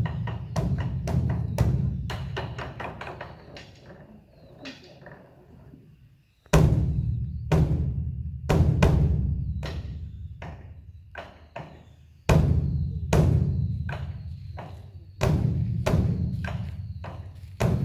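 Beopgo, the large Buddhist dharma drum of a Korean temple, beaten by a monk with two sticks for the evening service: quick runs of sharp strokes over a deep boom. The drumming dies away about four seconds in, then a heavy stroke opens a new run about six and a half seconds in, and again roughly every three to six seconds.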